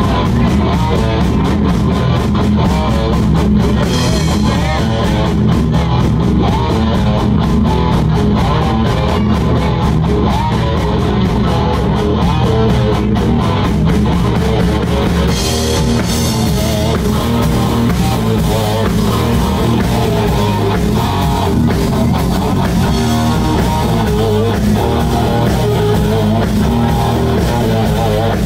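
Live rock band playing loud: distorted electric guitars over a drum kit, in a steady rock groove.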